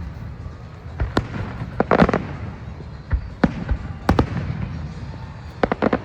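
Fireworks going off: irregular sharp bangs over a low rumble, with a quick run of several bangs near the end.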